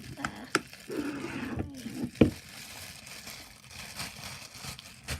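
Sticky slime being worked by hand, with squelching and a few sharp clicks and pops; the loudest pop comes about two seconds in.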